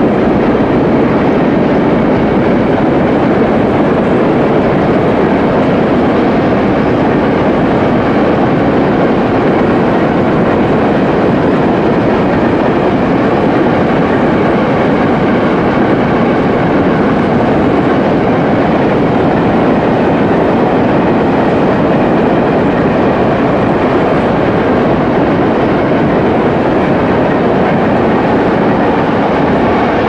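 Freight wagons of a ČD Cargo train rolling past in a steady stream, their wheels rumbling and clattering on the track, first covered hopper wagons and then Eas open wagons.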